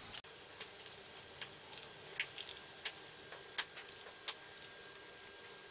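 Straight tin snips cutting thin powder-coated aluminium sheet: about ten short, sharp metallic snips at an uneven pace.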